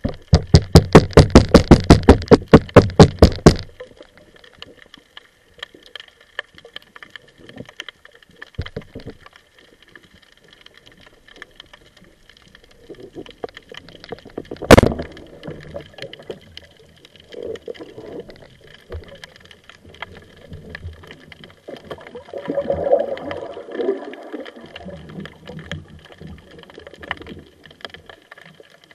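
Underwater: a loud, fast run of clicks at the start, then about halfway a single sharp crack as a rubber-band speargun fires at a mullet. Softer rustling and gurgling follow.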